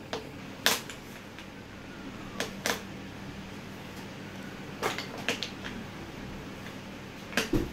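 Wooden tangram pieces clicking against each other and the wooden tray as they are felt for and fitted into place: a handful of sharp, scattered knocks over several seconds, with a faint steady hum underneath.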